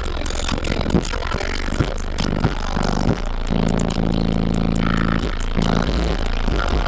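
Car audio subwoofers, Resilient Sounds Gold V2s, playing loud deep bass, with short clicks and rattles over the steady low rumble.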